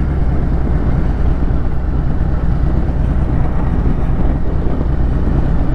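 Wind buffeting the microphone: a steady, loud low rumble with a rushing haze above it.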